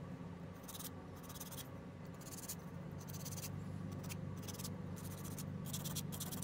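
Hand nail file rasping across cured acrylic nails in short runs of strokes, shaping and sharpening them, over a steady low hum.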